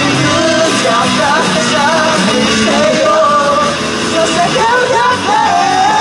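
Live rock band playing loudly: electric guitars, bass and drums with a sung vocal line over them.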